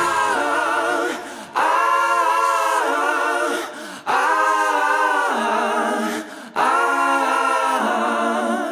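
Background music: voices singing in harmony, several long held chords with short breaks between them, fading out at the end.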